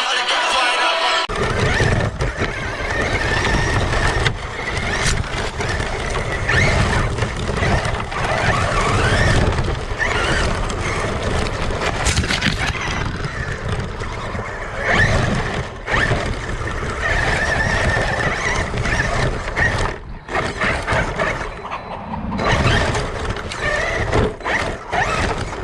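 Traxxas E-Revo 2.0 RC truck driving over rough ground, its electric motor whining on and off above a rumble of drivetrain and tyres, heard from a camera mounted on the truck. Music ends about a second in.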